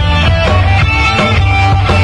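Live rock band playing an instrumental stretch between sung verses, with guitar, keyboard and a drum kit keeping a steady beat over heavy bass.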